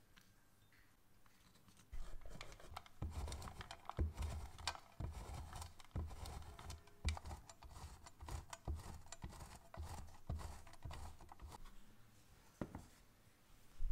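A block of Swiss-type cheese rubbed by hand over a flat stainless-steel grater, a run of rasping strokes about one to two a second starting about two seconds in. Near the end come a couple of knocks as a container is set down on a wooden board.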